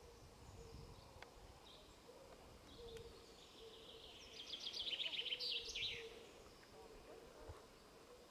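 A small songbird sings one short, fast trill of repeated high notes that step down in pitch, about four seconds in, over faint outdoor background noise.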